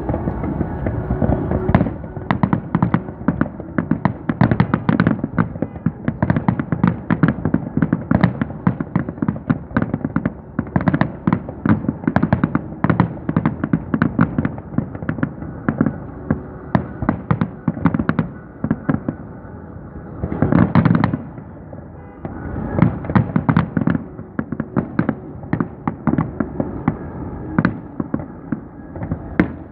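Fireworks show: a rapid, continuous barrage of bangs and crackles, several reports a second. About two-thirds of the way through comes a brief, dense rush of crackling.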